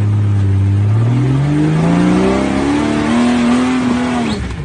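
Off-road vehicle's engine revving. It runs steady for about a second, climbs in pitch over the next two seconds, holds high, then drops off suddenly near the end.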